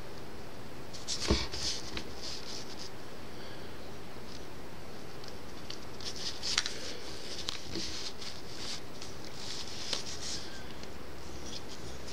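Light scratching and small clicks from a needle tool working liquid clay onto a small polymer clay piece on a tabletop, over a steady faint hiss. The sharpest click comes about a second in, with further small clusters of scratchy taps later on.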